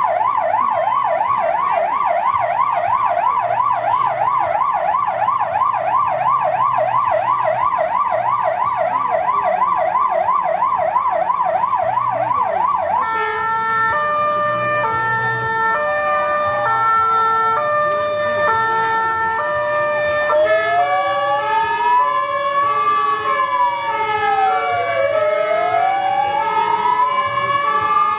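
Fire engine sirens sounding. First comes a fast yelp warbling up and down several times a second. About 13 s in it gives way to a stepped high-low tone pattern, and about 20 s in a slow wail rising and falling joins it. The trucks' engines rumble low underneath.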